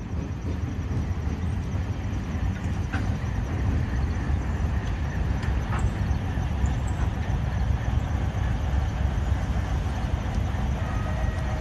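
ALCO diesel locomotives running with a steady low rumble, a few faint clicks over it.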